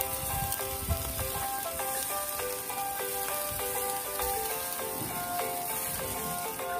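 Background music with a melody of quick notes, over the steady sizzle of sausages, burgers, ribs and chicken cooking on a barbecue grill.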